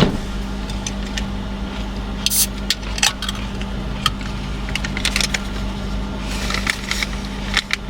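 Light clicks and rustles of small items and packaging being handled, in clusters, over a steady low hum.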